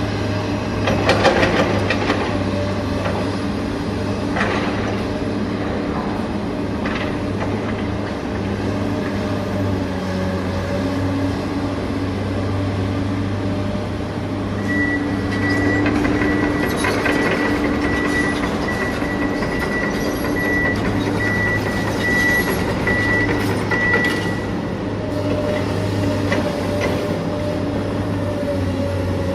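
Cable excavator running steadily: a constant low engine hum with mechanical rattle. There are a few knocks near the start, and a high, pulsing whine sets in about halfway through and lasts about ten seconds.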